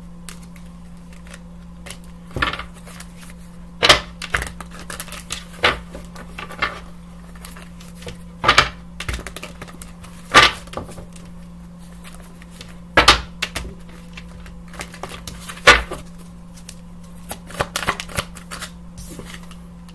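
A deck of oracle cards being shuffled and handled by hand, giving sharp, irregular clacks and taps every second or two, some in quick pairs, over a steady low hum.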